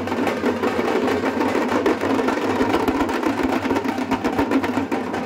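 Several rope-laced barrel drums played together in a fast, dense, continuous beat.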